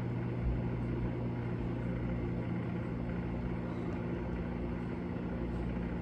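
Microwave oven running with a steady electrical hum during its 20-second cook cycle.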